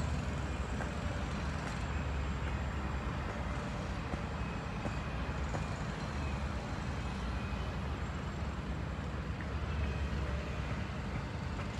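A steady low engine rumble, with a few faint whines now and then.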